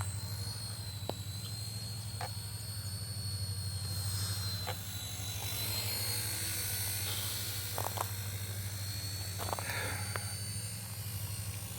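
RC helicopter flying, its motor giving a steady high whine that wavers slightly in pitch over a low, even rotor hum, with a few light clicks.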